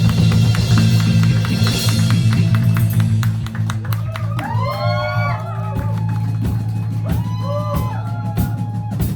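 Live rock band playing: drum kit and guitar over a steady bass, with a melody line that bends up and down in pitch in the second half.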